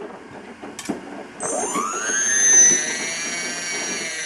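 Racerstar 1000 KV brushless motor, driven by an ESC from a servo tester, gives a whine that falls away at the start. About a second and a half in it spins up with a rising whine and a high whistle above it. It holds speed, then begins to slow at the very end.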